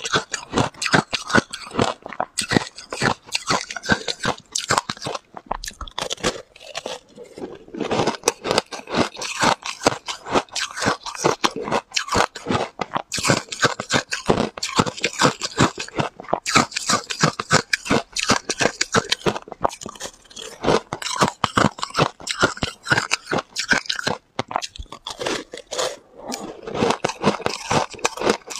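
A person biting and chewing a lump of ice soaked in passion fruit juice, close to a clip-on microphone: a dense, continuous crackling crunch with a brief let-up about six seconds in.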